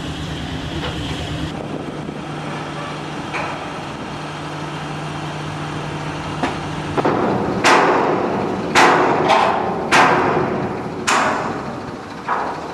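Construction machinery engine running with a steady low hum, then a run of about six sharp bangs, hammer-like blows roughly a second apart, in the second half.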